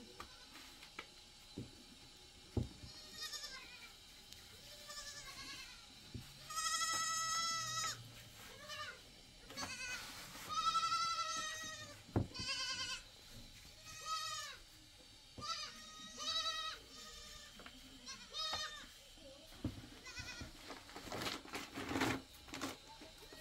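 Goats bleating off and on, a dozen or so wavering calls, with a few sharp knocks.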